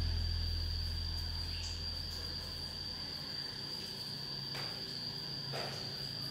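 An insect trilling steadily on one unbroken high pitch. The last notes of guitar music fade out over the first few seconds, and a couple of faint clicks come near the end.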